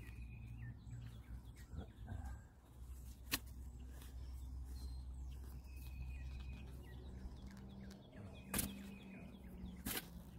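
A few sharp knocks from a shovel and a PVC water pipe being worked in a dirt trench, over a low steady rumble. Faint bird chirps sound in the background.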